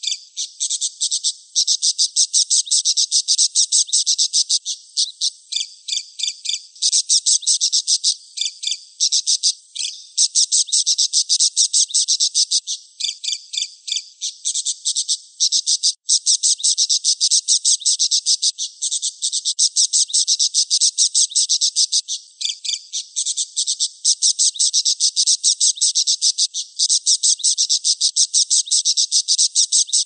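Budgerigar chattering in a fast, unbroken stream of high-pitched chirps and clicks, with a brief break about halfway.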